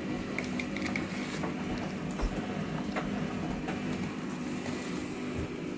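A steady low machine hum, with a few light clicks and rustles as grocery bags and a bottle are handled.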